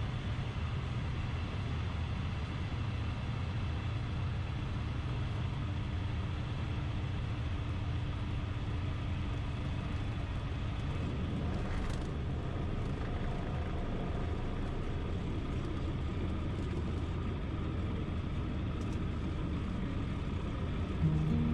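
Light aircraft's engine idling with the propeller turning, heard from inside the cockpit during the landing rollout; a steady low hum.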